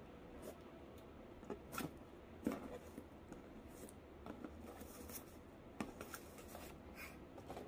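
Faint rustling and scraping as a ribbon is untied and pulled off a cardboard gift box, with a few light clicks and taps from the box being handled.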